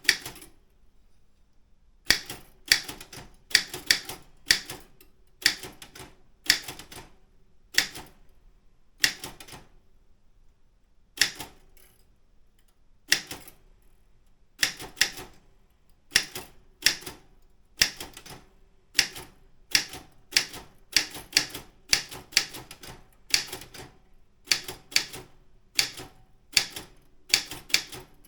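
Daro Optima M16 manual office typewriter being typed on: single key strikes land at an uneven pace of about one or two a second, with short pauses between bursts, the longest about two seconds near the start.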